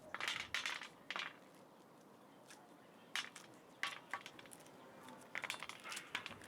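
Scattered light clicks and knocks of things being handled: a few in the first second and a half, single ones near the middle, and a quick run of them near the end.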